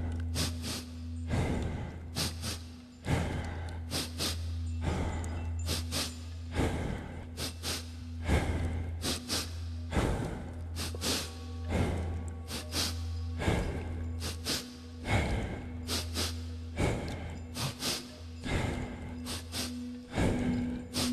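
Meditation music with a low steady drone, with short breathy rushes of air coming many times over it; near the end a higher singing-bowl tone swells.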